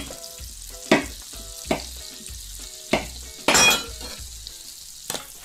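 Butter sizzling in a hot wok, with sharp knocks every second or so and a louder burst a little past the middle, over faint music.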